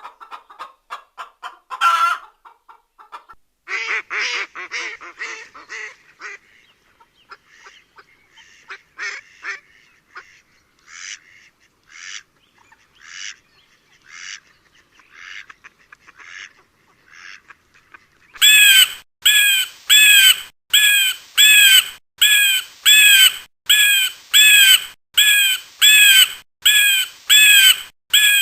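A run of bird calls. It opens with hens clucking, then comes a stretch of scattered short calls from other birds. About two-thirds of the way in, a crow starts cawing loudly and regularly, a little more than one caw a second, each caw the same as the last.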